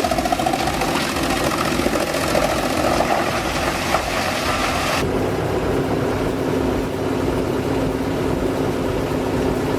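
Wood chipper running loudly, a mix of engine noise and shredding. About halfway through the sound changes abruptly to a steadier engine hum with less hiss.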